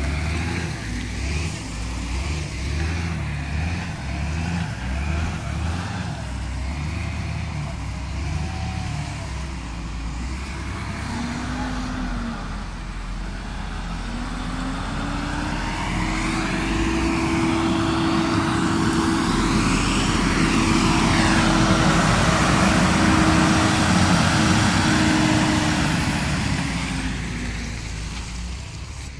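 Heavy diesel engines of road-work machinery running. In the first half the engine notes shift unevenly up and down. Around the middle one engine climbs in pitch and holds a steady drone with a whine above it, growing loudest about three-quarters through and then fading near the end.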